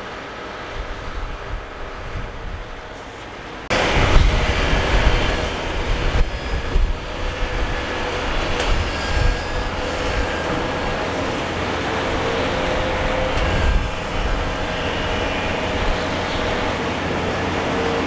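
Heavy diesel earthmoving machinery running steadily, with a steady engine hum. It becomes abruptly louder about four seconds in.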